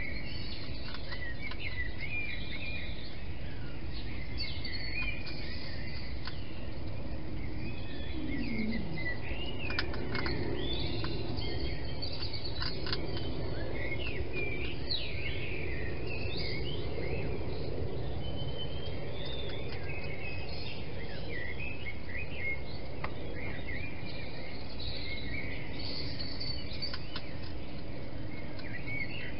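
Small birds chirping and singing, many short quick chirps overlapping one another, over a steady low hiss.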